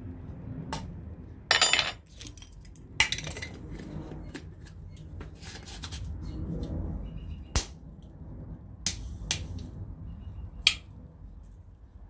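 Clinks, taps and a short rattle of a glass sugar dispenser, its metal lid and a metal spoon being handled to measure out sugar, with a few sharp knocks spread through.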